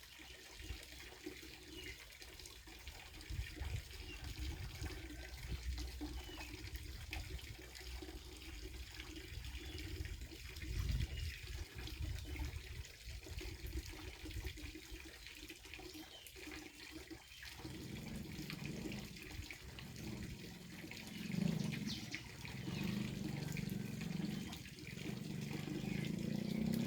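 Water running and splashing steadily. From about two-thirds of the way in, a low drone joins it.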